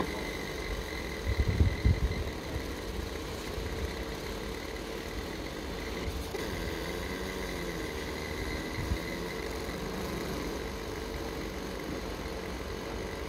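100 W dynamic laser marking machine running as it engraves plywood: a steady mechanical hum with a thin high whine. A few dull low thumps come about one to two seconds in, and another near nine seconds.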